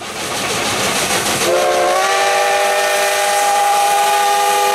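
Steam locomotive chime whistle: a rush of steam hiss, then about a second and a half in the whistle sounds a long, steady chord of several notes at once.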